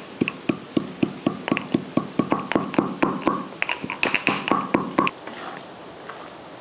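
Stone pestle pounding cardamom in a small stone mortar: quick, even knocks about four a second, each with a short ring, stopping about five seconds in.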